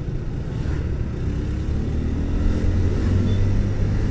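Motorcycle engine running while riding and picking up speed, its pitch rising gently through the middle, over a steady rush of wind and road noise.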